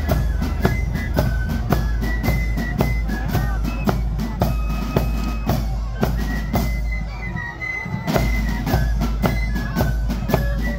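Marching flute band playing a tune: high flutes carry the melody over a bass drum and side drums beating a steady march rhythm, about three strokes a second. The drumming thins out briefly about two-thirds of the way through, then picks up again.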